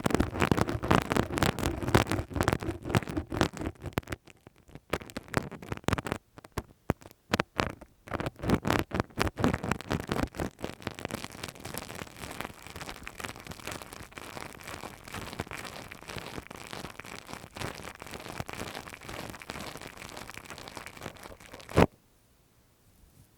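Close-miked ASMR ear-cleaning sounds: dense scratching and crackling clicks, fullest in the first few seconds, then sparser, then a steadier fine crackle. It ends with one sharp click a little before the end and cuts off.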